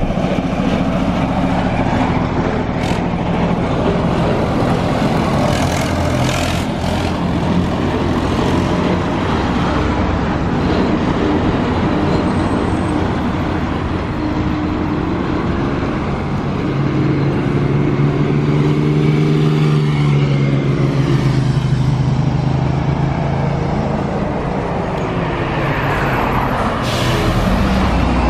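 Road traffic going past: old tractor engines running slowly and steadily, mixed with passing cars and motorcycles, and a heavy truck's deep rumble near the end.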